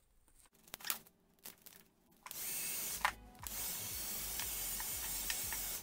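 A few light clicks from scissors and handling of heat-shrink wrap, then a handheld electric heat gun switches on about two seconds in and blows a steady hiss with a low motor hum, shrinking the heat-shrink wrap onto a battery pack. The hiss dips once, briefly, about a second after it starts.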